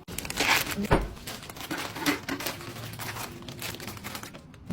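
Plastic snack packaging crinkling and rustling as items are handled, with a single thump about a second in.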